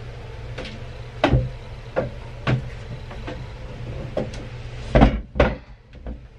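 Knocks and thumps of a coil of heavy battery cable being handled and set down on a plywood bench top, the two loudest thumps about five seconds in, over a steady low hum.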